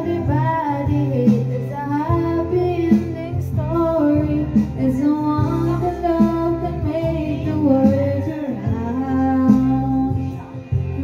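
A young woman singing a melody into a handheld microphone over backing music, her amplified voice carrying throughout.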